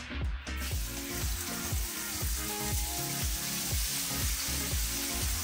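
Potatoes dropped into a pan of very hot olive oil, sizzling as they start to fry. The sizzle starts suddenly about half a second in and then holds steady.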